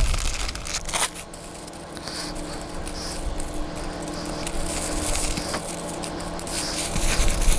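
Plastic hardware bags being cut open and handled, with snipping, rustling and scraping sounds and a few clicks, over a steady hum.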